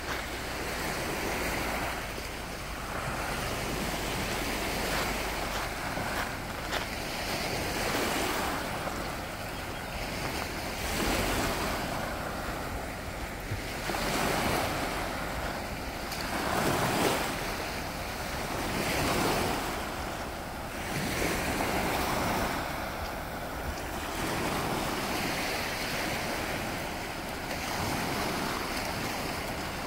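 Small Baltic Sea waves breaking and washing up onto a sandy beach, the surf swelling and easing every two to three seconds.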